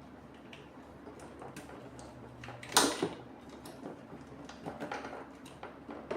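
Parts of an HHO generator being handled and fitted back on by hand: light scattered clicks and knocks, with one sharp louder knock about halfway through.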